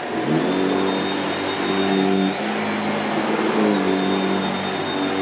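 Shark Powered Lift Away NV681UKT upright bagless vacuum cleaner running on carpet, its motor giving a steady rush with a thin high whine. A low hum glides up in pitch at the start and shifts pitch a couple of times as the floor head is worked.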